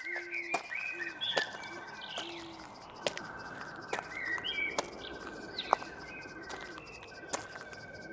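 Birds chirping and calling over one another, with a repeated buzzy trill coming and going, and scattered sharp clicks.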